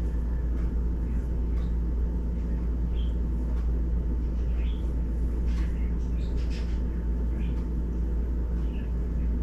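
A steady low background rumble, with faint, irregular rubbing of a wet wipe across a phone's glass screen.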